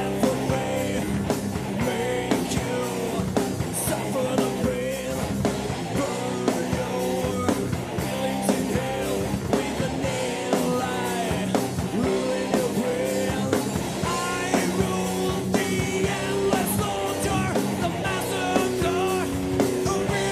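Metal band playing a riff-based song: drum kit, distorted electric guitars and a male singer, with the drums hitting steadily throughout.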